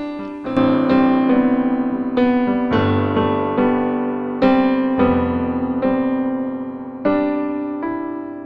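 Background music: a slow, gentle electric piano melody, notes struck about every half second and left to ring and fade.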